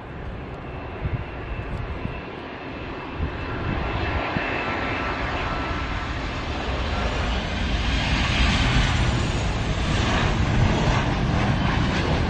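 Jet engines of a Boeing 737 airliner on final approach: a steady whine over a broad rush of noise, growing steadily louder as the aircraft comes in close to land.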